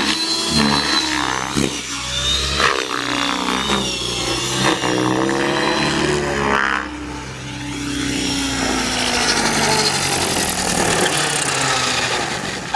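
Align T-Rex 600E electric RC helicopter in flight, its motor and main rotor whining with a pitch that swoops up and down as it maneuvers.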